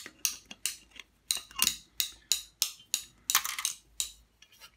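Pliers clinking and clicking against the brass and copper fittings of an electric shower's heater, working at a small spring clip. About a dozen sharp metallic clinks, two or three a second, bunched closely a little past three seconds in.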